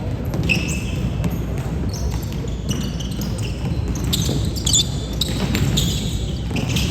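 Basketball game in a gym hall: the ball bouncing on the court amid the general noise of players moving, with some voices.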